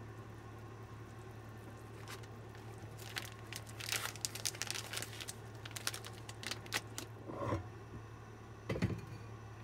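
Irregular crackling and popping from a pan of noodles, mushrooms and greens simmering over a Trangia alcohol stove, then two knocks near the end as the pan is lifted off the cast-iron grate. A steady low hum runs underneath.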